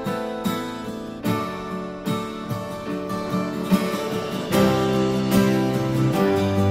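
Instrumental background music led by picked acoustic guitar; deeper sustained bass notes join about two-thirds of the way through.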